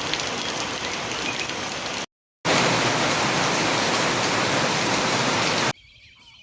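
Heavy rain falling, a dense steady hiss. It breaks off for a moment about two seconds in, comes back louder, then stops abruptly near the end, leaving a few faint bird chirps.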